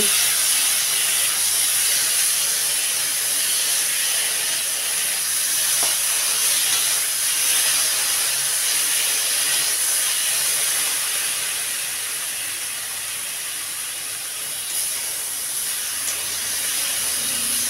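Wet paste of ground cumin, ginger and green chilli sizzling in hot oil with fried potato cubes in a kadai: a steady hiss as the masala is fried down, easing slightly in the second half.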